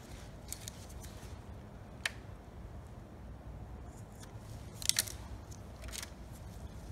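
Small sharp clicks and rustles of gloved hands handling a carburetor and rubber fuel line in a paper-towel-lined foil tray: one crisp click about two seconds in, the loudest cluster of clicks near five seconds and another near six, over a steady low hum.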